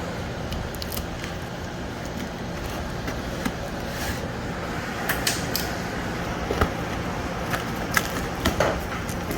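Steady air-conditioner hum, with scattered clicks, taps and short scrapes of a cardboard box being handled and opened.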